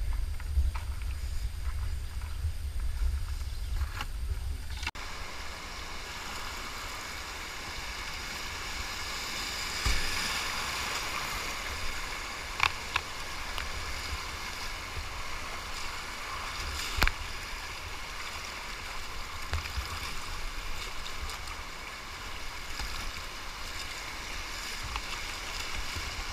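Whitewater rushing through a river rapid, heard from a kayak as a steady hiss of moving water, with a few sharp knocks and splashes of the paddle. For the first five seconds there is only a low rumble before the water sound cuts in.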